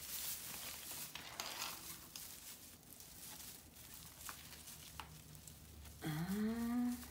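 Rustling of artificial Christmas tree branches and light-string wire as a string of LED lights is threaded through them, with a few faint clicks. About six seconds in, a woman's short hummed 'mmm', rising in pitch and lasting about a second, is the loudest sound.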